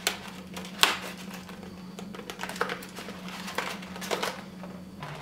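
Hands knotting the neck of a small inflated latex balloon: scattered short rubbing clicks and crinkles of stretched latex, the sharpest about a second in, over a steady low hum.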